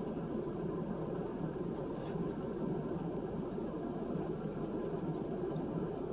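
Steady low rumbling background noise, with a few faint clicks about a second and two seconds in.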